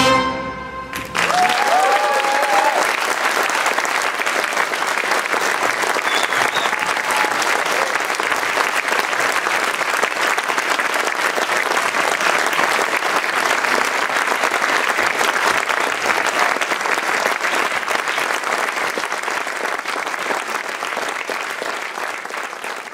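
A big band's final brass chord cuts off about a second in, and the audience breaks into loud applause that eases off near the end.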